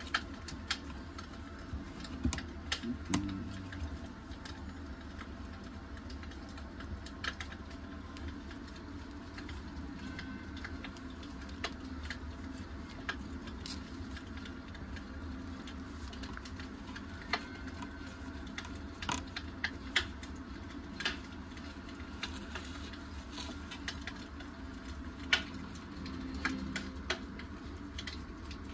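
Steel hemostats clicking and tapping against a glass tabletop while fabric is twisted into pleats: scattered, irregular small clicks over a low steady hum.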